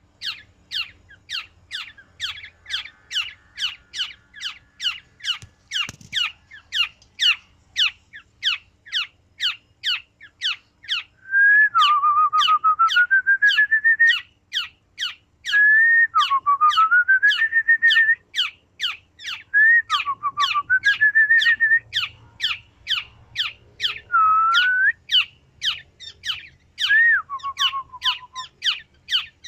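Black-naped oriole (kepodang) singing: a steady run of short, sharp notes about two a second, joined from about a third of the way in by louder fluty whistled phrases that dip and then climb in a quick trill, repeating every few seconds.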